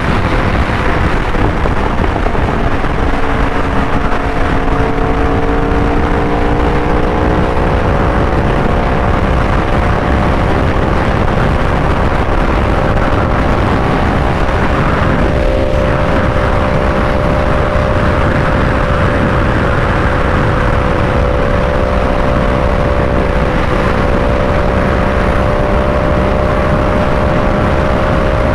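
Yamaha R1's crossplane inline-four engine running at a steady cruising speed, its pitch rising slightly over the first several seconds and then holding even, under heavy wind rush on the microphone. A truck passes about halfway through.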